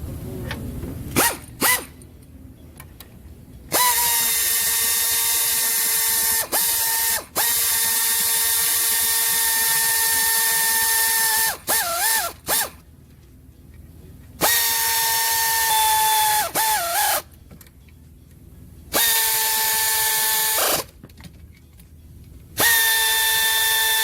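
Cordless power tool motor running at a steady high pitch in four long spurts of several seconds each, with a brief wobble in pitch as each run stops. A couple of sharp clicks come about a second in.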